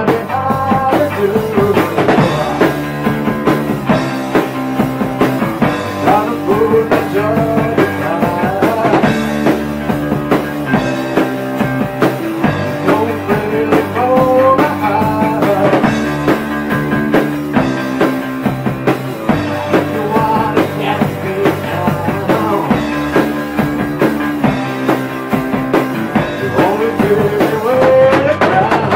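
Hard rock band playing a song: electric guitars, bass guitar and drum kit, with a bending melodic line on top.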